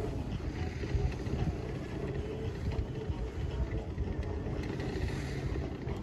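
Wind rushing over the microphone while skiing downhill, a steady low buffeting rush.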